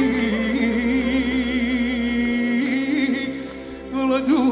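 A man singing a long held note with vibrato over a live band's accompaniment. The voice drops away about three seconds in and comes back with new notes near the end.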